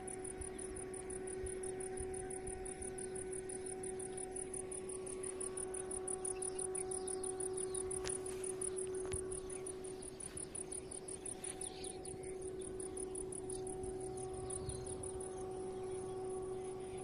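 Insects, crickets by the sound, chirping in a fast, even, high-pitched pulse, several pulses a second, over a steady hum.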